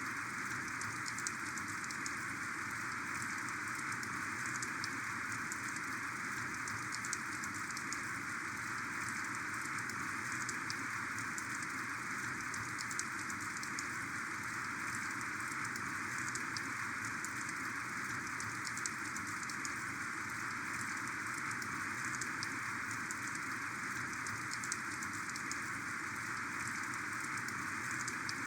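Heavy rain falling steadily: a dense, even wash of sound peppered with fine, crisp drop ticks.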